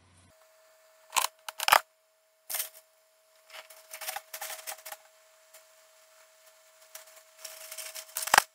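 Objects being handled and rummaged through: a few sharp clicks and knocks, then stretches of rustling, ending in one loud sharp click, over a faint steady tone.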